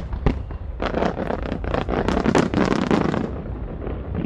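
Fireworks going off: two sharp bangs at the start, then a dense stretch of crackling pops from about a second in, dying down after about three seconds.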